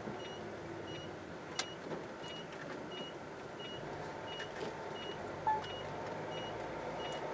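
Vehicle turn-signal indicator beeping a short high tone at an even rate, roughly twice a second, as the vehicle turns right. Steady engine and road noise runs underneath, with a single sharp click about a second and a half in.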